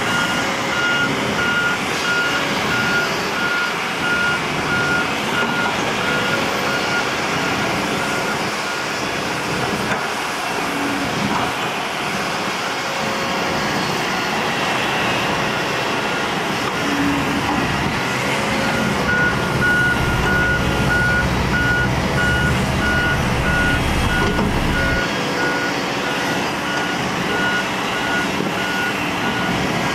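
Diesel heavy earthmoving machinery running steadily, with a machine's reversing alarm beeping in an even, repeating pulse for the first several seconds and again through the last third. The low engine rumble swells for a few seconds past the middle.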